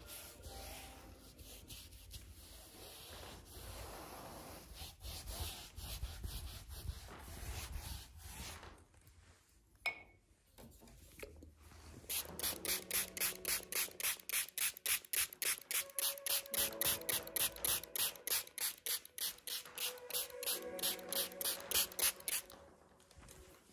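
A wide brush stroking wet acrylic paint across a stretched canvas. About halfway through, a plastic spray bottle mists water onto the canvas, its trigger squeezed in a fast, even run of about three to four squirts a second for some ten seconds.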